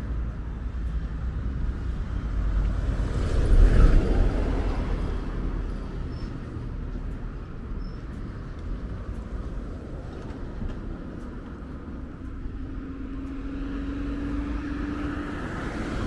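Road traffic going past on a roundabout road. A vehicle passes close about four seconds in, the loudest moment, and a steady low engine hum comes in near the end.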